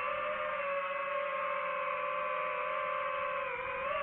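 DJI FPV drone's motors and propellers whining steadily in Sport mode flight. The pitch dips briefly about three and a half seconds in, then rises again.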